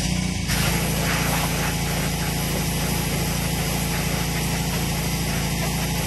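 Gas pressure washer's small engine running steadily at a constant speed, with a steady hiss over it.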